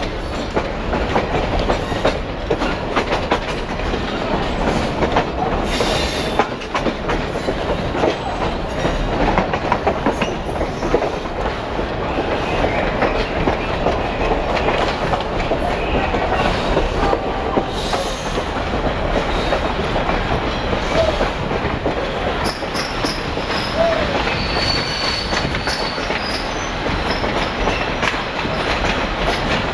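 Passenger train rolling along the track, heard from aboard: a steady rumble with the wheels clicking over rail joints, and a brief high wheel squeal near the end.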